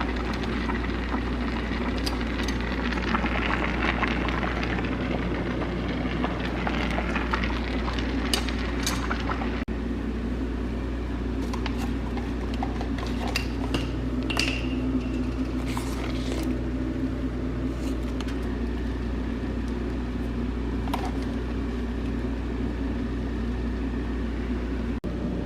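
Cooking utensils clinking and scraping against a pot and dishes in scattered short knocks, over a steady low hum.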